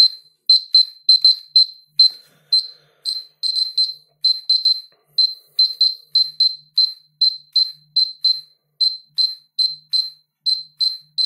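Polimaster PM1703GNA dosimeter beeping in short, high-pitched chirps at irregular intervals, about three a second, as it registers gamma radiation from a thoriated electrode of a high-pressure xenon arc lamp.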